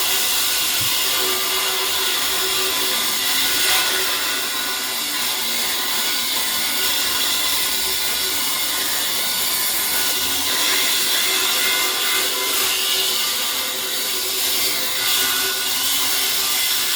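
Power tool's cut-off blade cutting steadily through the thick steel of a safe, a continuous high grinding whine.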